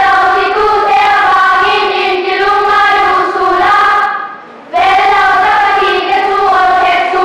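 Children's choir singing a hymn in two long phrases, with a short breath gap about four seconds in.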